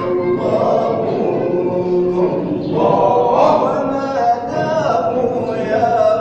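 Sufi devotional chanting (inshad) by a group of voices singing together without instruments, in long, gliding held notes.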